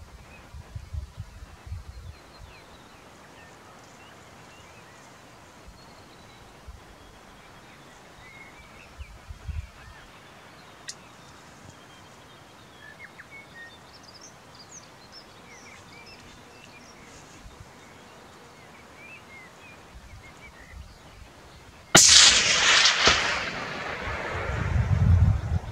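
A single hunting-rifle shot near the end: a sharp crack followed by echo rolling and fading over a few seconds. Before it, a quiet outdoor background with a few faint bird chirps.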